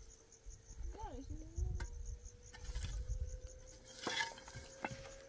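A cricket chirping in an even pulse, about three to four chirps a second. Under it run a steady hum, a brief gliding sound about a second in, and a few light knocks.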